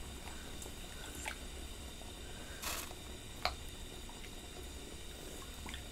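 Quiet soft plops and splashes as rice cakes are dropped by hand into a pot of hot broth, with a few small clicks, the sharpest about three and a half seconds in.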